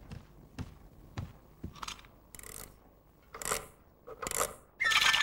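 Clockwork key winding a mechanical toy nightingale: a string of separate ratcheting clicks and clacks. Near the end the wound-up bird starts its high, trilling tune.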